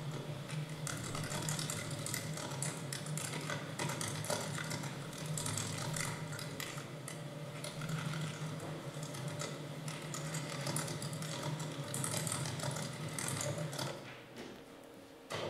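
Continuous clattering, ratchet-like mechanical clicking over a steady low hum, dying away about fourteen seconds in.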